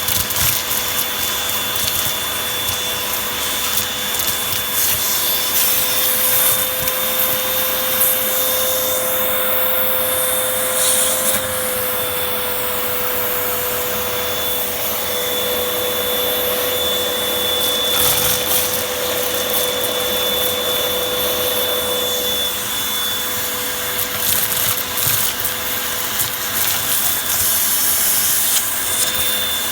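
Vacuum cleaner running steadily with a constant whine, sucking up dirt, with scattered ticks of grit through it.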